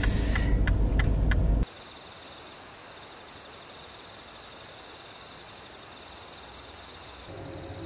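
A car's low engine and road rumble cuts off about a second and a half in, giving way to a chorus of crickets and other night insects trilling steadily at several pitches, the highest pulsing on and off.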